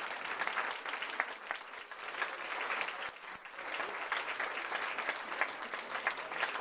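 A small roomful of people applauding, many hands clapping at once without a break.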